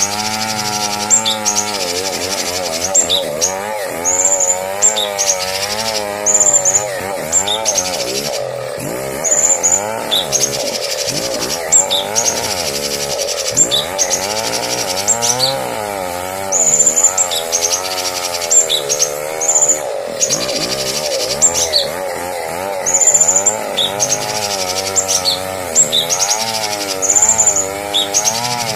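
Recorded songbird calls played as a masteran, a tutor song for training cage birds: short high chirps and whistled notes come every second or so over a continuous wavering, buzzy drone.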